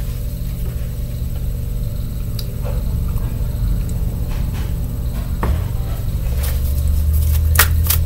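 A steady low rumble, with a few light clicks scattered through it and several sharper clicks near the end as a tarot deck is handled.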